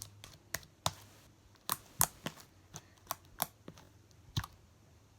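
Sticky white slime being squeezed and pulled in the hands, giving about ten sharp, irregularly spaced clicks and pops.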